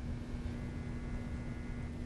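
Low steady hum with a faint hiss, with no distinct events.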